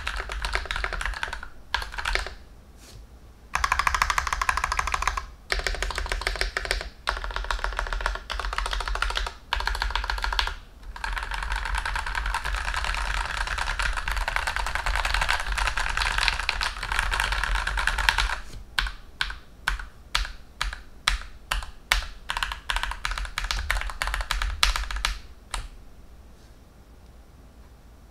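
CIDOO ABM084 mechanical keyboard with its stock switches being typed on: fast, continuous runs of keystrokes, then slower single key presses about two-thirds of the way through.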